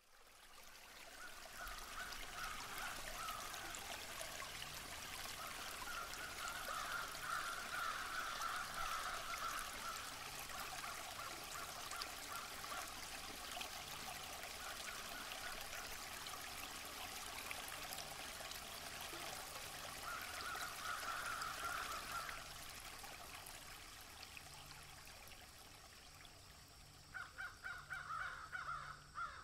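Rushing river water, a steady hiss, with birds calling on and off and a run of rapid, stuttering calls near the end.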